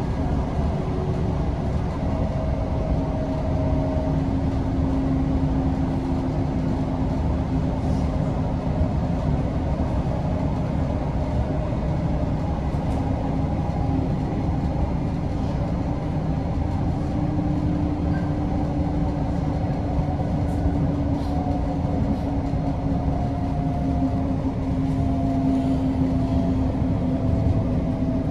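TriMet MAX light rail train running, heard from inside the car: a steady rumble with a low motor whine that slowly shifts in pitch as the speed changes.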